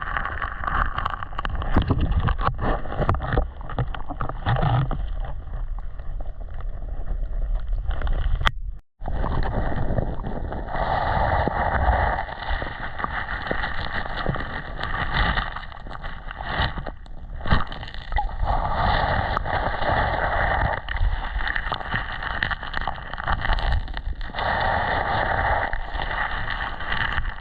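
Creek water sloshing and splashing as someone wades and stirs through it, with wind on the microphone. The sound cuts out for a moment about nine seconds in.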